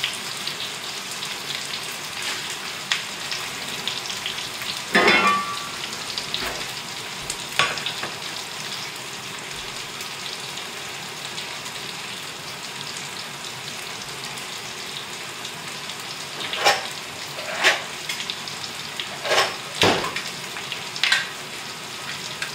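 Fried potatoes and bacon sizzling steadily in a cast-iron pan. Sharp knocks and clanks cut through it: a loud one about five seconds in, another soon after, and a run of four or five near the end.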